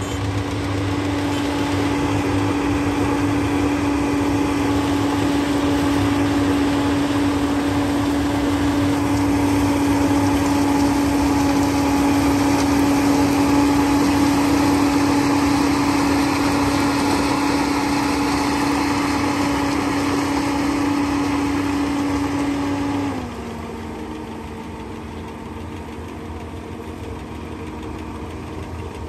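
Sugarcane harvester running steadily while it cuts cane, with one steady humming tone over its engine noise. About 23 seconds in, the sound drops quieter and a little lower in pitch.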